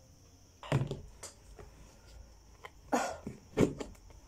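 Plastic rice storage container's snap-on lid being unclipped and pulled off: a few sharp plastic clicks and knocks, with a brief rustle about three seconds in.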